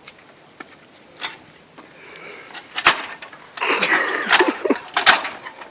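Metal clanks, knocks and scraping from hand work on a moped's exhaust, with brief squeaks of metal on metal. It is busiest from about three seconds in, and there is a sharp knock near the end.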